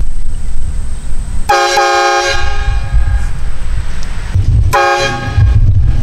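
Portable train horn blasted twice: a blast of about a second, then a shorter one about three seconds later, each ringing out briefly, over a low rumble.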